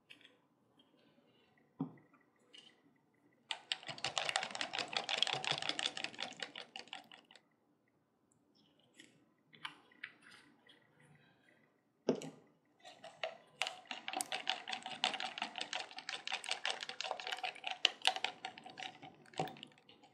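Wooden stir stick scraping and clicking rapidly against the walls of a thin plastic cup while mixing casting resin, in two bouts, the second longer, with a few single knocks between them.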